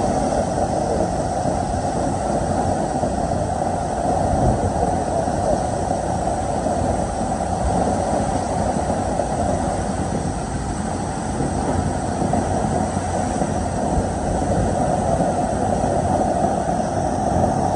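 Water gushing at full pressure from a sheared-off fire hydrant: a loud, steady rush of spray.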